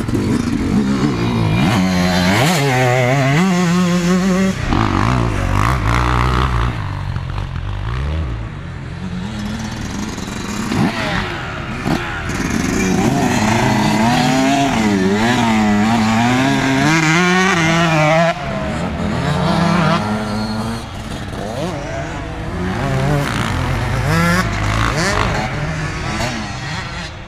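Yamaha YZ125 two-stroke motocross bike engine revving hard and easing off again and again, its pitch climbing and dropping with the throttle and gear changes as the bike rides the dirt track.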